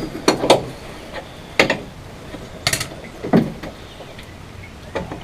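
Several separate metallic knocks and clanks, about a second apart, from tools and parts being handled during hands-on work on a VW engine.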